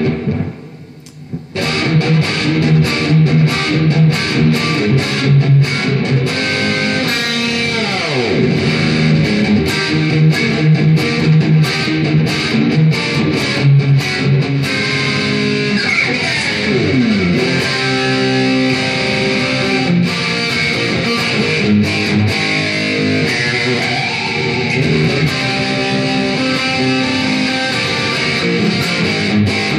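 Electric guitar with a Seymour Duncan JB humbucker, played through a Marshall VS265 Valvestate amp with reverb: riffs and picked notes that stop for about a second near the start. Twice, about 8 and 17 seconds in, the pitch drops in a dive on the Floyd Rose tremolo.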